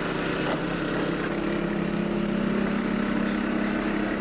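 Small gasoline engine of a hydraulic rescue-tool power unit running steadily, its note growing a little stronger partway through.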